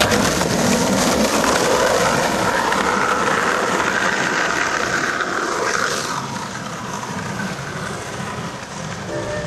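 Skateboard wheels rolling over a rough concrete path: a steady rolling noise that fades somewhat about six seconds in.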